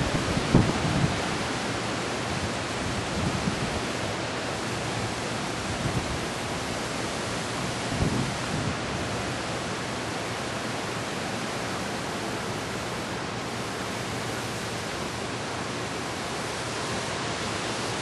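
Steady rushing of strong windstorm wind from Hurricane Ike. Gusts buffet the microphone at the start and again briefly about six and eight seconds in.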